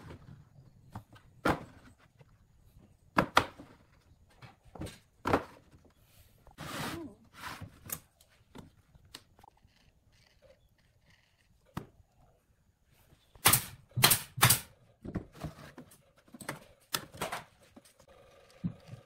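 Irregular sharp knocks and taps of wood and tools being handled, with a short scraping sound about a third of the way in and three loud knocks in quick succession about two-thirds of the way through.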